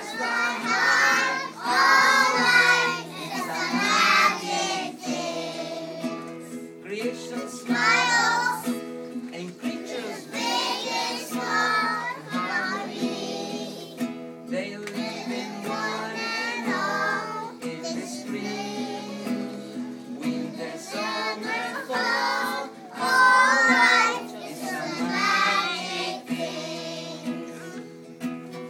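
A group of preschool children singing a song together, with a steady instrumental accompaniment underneath.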